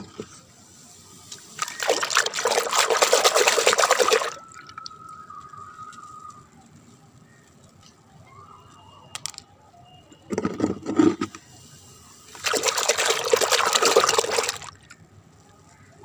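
Water sloshing and splashing in a plastic bucket as a hand swishes toys through soapy water. It comes in two loud bursts of about two seconds each, with a shorter, duller splash between them.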